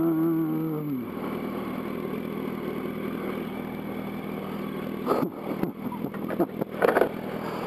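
Yamaha R1's inline-four engine running at a steady low idle under traffic noise while the bike creeps along in stop-and-go traffic. A strong held pitched tone at the start drops in pitch and fades about a second in, and a few short sharp sounds come near the end.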